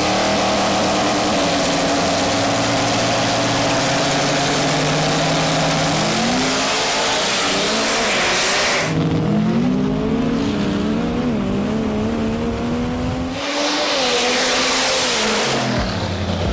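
Drag-race launch of a nitrous-fed Cummins inline-six diesel drag truck and a small pickup racing beside it, both engines at full throttle. The engine note holds high, then climbs in steps and wavers as they pull away down the strip. The character of the sound shifts abruptly twice.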